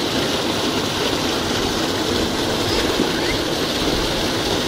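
Water from a tubewell outlet gushing into a concrete basin and churning around people standing in it: a steady, even rush with splashing.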